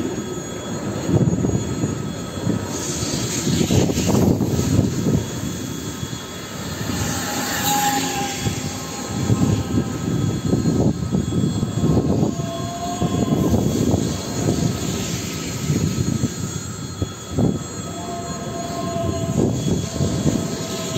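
EG2Tv Ivolga electric multiple unit passing close by: a continuous rumble and clatter of wheels on the rails that swells and dips, with a few short high tones scattered through it.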